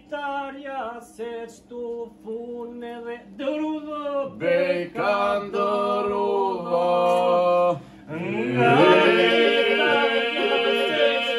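Southern Albanian men's iso-polyphonic singing, unaccompanied. A lead voice sings an ornamented, wavering line over a low held drone. About eight seconds in, after a short break, the other voices come in together over a steady drone, and the sound grows louder and fuller.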